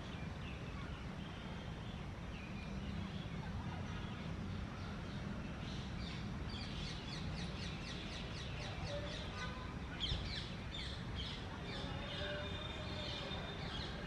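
Birds chirping and calling over a steady low background rumble, with a fast run of sharp repeated chirps from about six to ten seconds in.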